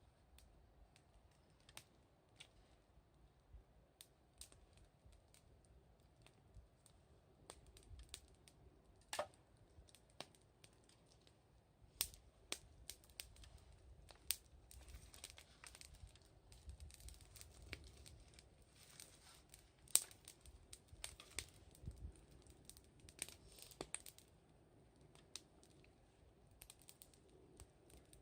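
Wood fire crackling: irregular sharp pops and snaps, sparse at first and busier through the middle.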